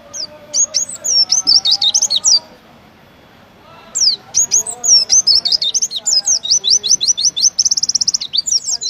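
Oriental white-eye (pleci) singing its fast 'tembakan' song: rapid strings of high, downward-sliding whistled notes in two bursts, with a pause of about a second and a half. The second burst ends in a quick trill.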